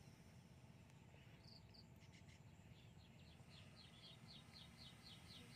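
Faint, even chirping of a cricket-like insect, about four high chirps a second, starting about three seconds in, over a low background hum of open-air ambience.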